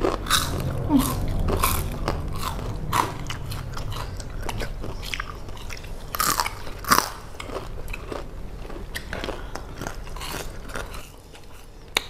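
Two people biting and chewing crisp fried Indonesian street snacks (sempol ayam on skewers and small fried balls): irregular crunches and chewing, with two louder crunches about six and seven seconds in.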